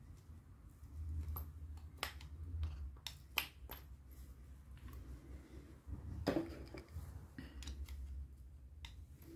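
Flat-blade screwdriver prying LPG injectors out of a plastic injector rail: a scattering of sharp clicks and taps of metal on plastic, the loudest about six seconds in, over low handling rumble.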